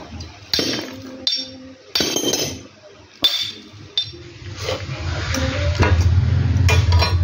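A hammer striking a welded steel T-joint piece: about five sharp metallic clinks with a ringing tail, spread over the first four seconds. In the second half a low steady hum builds.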